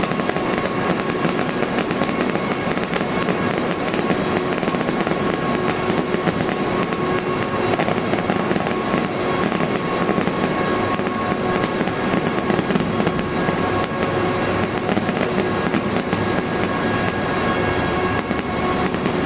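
Dense, continuous crackling of fireworks or firecrackers going off without pause, over several steady droning tones.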